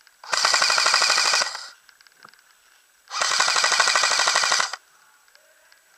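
Classic Army G36C airsoft electric rifle firing two full-auto bursts about a second and a half apart, each a rapid, even rattle lasting about a second and a half.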